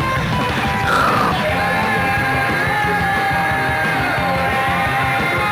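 Rock music: a band playing hard with a shouted, yelled lead vocal.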